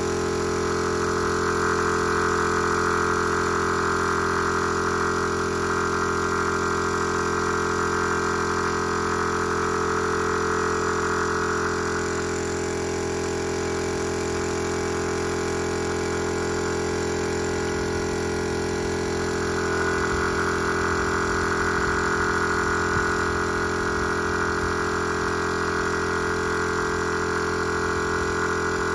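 Piston air compressor running steadily, with the hiss of spray guns painting. The hiss eases about twelve seconds in and picks up again about eight seconds later.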